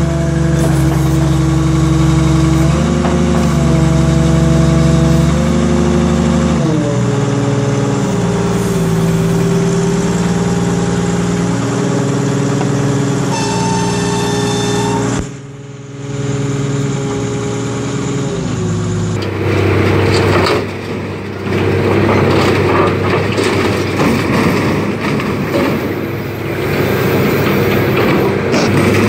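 Excavator's diesel engine running under hydraulic load as its grapple lifts a crushed car, the engine note stepping down and shifting, with a high whine joining briefly. About two-thirds of the way through, the sound changes to a harsher, noisier rumble and clatter of heavy machinery.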